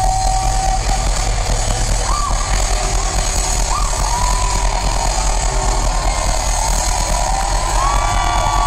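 Live band music played loudly, dense and distorted, with a heavy steady low end and a few short pitched vocal or guitar slides.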